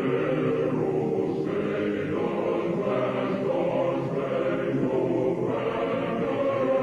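Choir singing slow, sustained chords.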